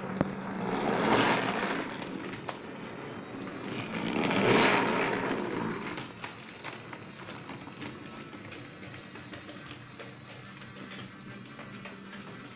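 Battery-powered toy trucks and a toy train running along wooden railway track: a steady motor whir with the rattle of wheels on wood. It swells louder twice in the first five seconds, then settles to a quieter, steady run.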